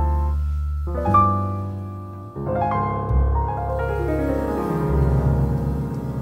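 Background piano music: notes and chords struck and left to ring, a new one coming in about every second over low bass notes.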